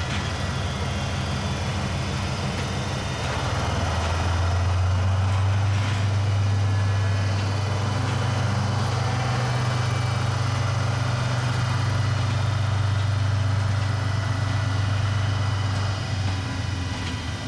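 DF200 diesel-electric locomotive's engines running with a loud, steady low drone, which swells about four seconds in and eases slightly near the end.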